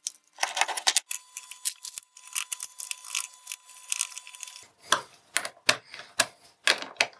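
Irregular sharp clicks and light rattles of small metal screws and nuts against a hard 3D-printed plastic part being handled and fitted by hand.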